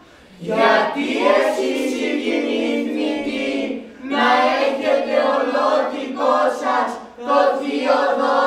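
A small chorus of voices singing unaccompanied in three long, held phrases, with short breaks about four and seven seconds in.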